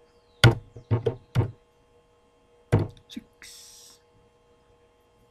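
Sharp clicks from a computer keyboard and mouse on a desk, three about half a second apart, then another about a second later, with a short faint hiss near the middle. A faint steady electrical hum runs underneath.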